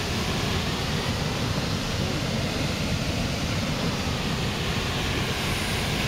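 Waterfall in rainy-season high flow, a heavy muddy torrent pouring into its plunge pool: a steady, unbroken rushing of water.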